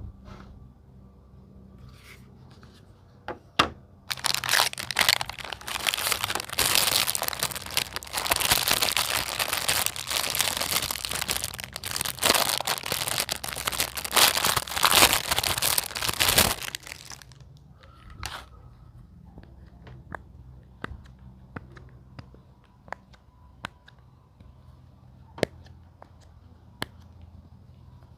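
Plastic packaging being crinkled and torn open in close-up, a dense crackling that runs for about twelve seconds and then stops. Before and after it come a few scattered light clicks and taps.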